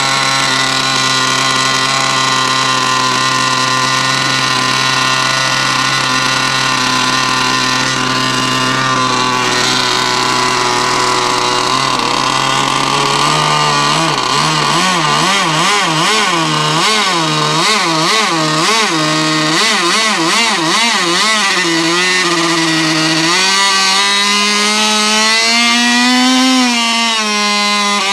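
Methanol-fuelled glow engine of an RC model L-39 Albatros ducted-fan jet running on the ground. It holds a steady note for about twelve seconds, then speeds up and its speed wavers up and down rapidly for several seconds before settling at a higher, steadier speed. It climbs once more near the end and then drops back.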